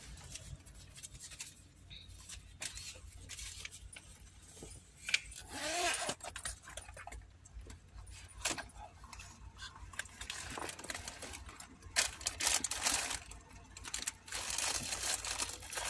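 Inside a car cabin: a low steady hum under scattered small clicks and rattles, with a brief voice-like sound about six seconds in.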